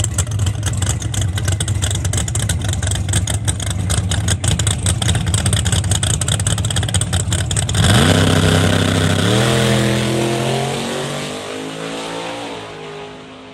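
Drag car engine running at a steady, choppy crackling rev while staged, then launching hard about eight seconds in: the revs climb and drop back with each gear shift, about three times, as the car pulls away down the strip and fades.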